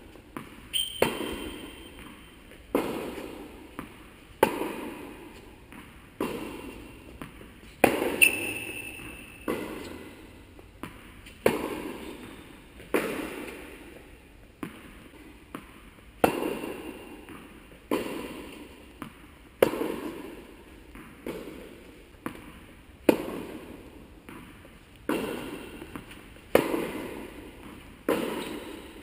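Tennis ball struck by rackets and bouncing on the court in a continuous rally, a sharp pop every second or so, each one ringing on in the echo of a large indoor tennis hall.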